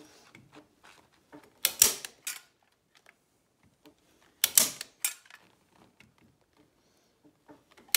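A hand staple gun driving staples through Dacron fabric into the wooden stem of a boat: two sharp snaps about two and a half seconds apart, each followed by a lighter click or two.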